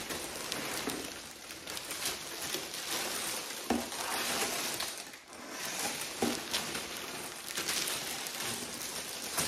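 Packaging rustling and crinkling as items are handled and taken out of a shipping box, with a few light knocks.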